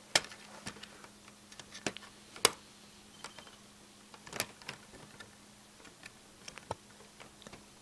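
Scattered sharp plastic clicks and ticks from hands handling a Lego Technic model's parts as a pin is worked loose from its chassis. The loudest click comes about two and a half seconds in.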